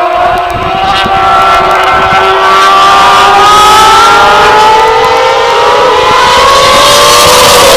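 Superbike engine running hard under acceleration, its pitch climbing steadily and then starting to drop near the end as the throttle eases.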